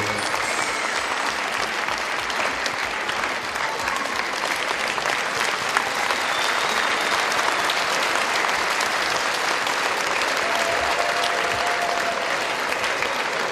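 A large audience clapping steadily.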